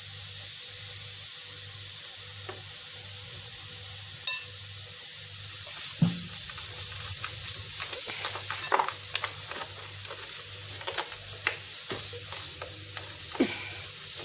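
Steady sizzling hiss of cooking on the stove. From about six seconds in come irregular clicks and squelches as salted lemons are pressed by hand to release their juice.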